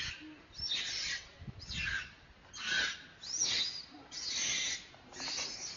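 Infant long-tailed macaque screaming in distress, a string of shrill cries about one a second. The crying of a young monkey being refused milk by its mother.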